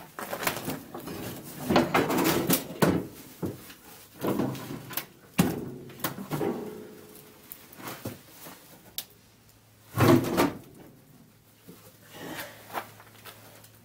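Rummaging in an old car's trunk: rustling of debris and knocks and clunks of loose metal body parts being moved and lifted out. A loud clatter comes about ten seconds in.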